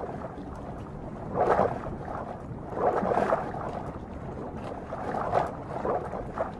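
Water splashing and sloshing around a small boat on the river, in irregular swells, the loudest about a second and a half and three seconds in.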